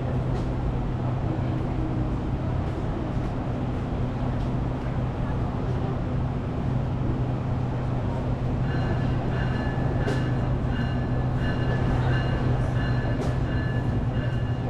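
GO Transit diesel commuter train idling at the station with a steady low hum. About nine seconds in, a high electronic beeping starts and repeats evenly: the door-closing warning before departure.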